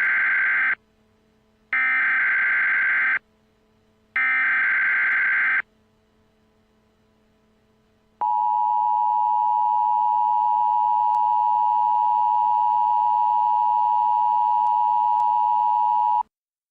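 Emergency Alert System tones: three warbling bursts of SAME header data, each about a second and a half long with a short gap between, then a couple of seconds later the steady two-tone attention signal (853 and 960 Hz sounded together), held for about eight seconds and cut off sharply.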